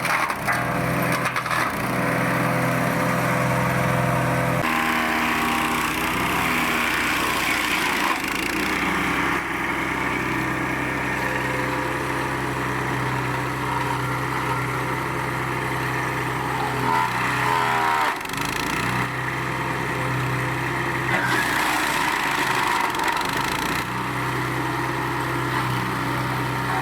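KisanKraft wood chipper's 7 hp petrol engine running steadily while the machine chips coconut fronds. The engine note bends and dips under load about 18 seconds in, then recovers.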